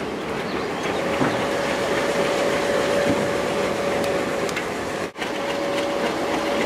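Diesel locomotive running steadily, the MLW FPA-4 heard from up on its roof: an even mechanical rumble with a steady whine over it. The sound drops out for an instant about five seconds in.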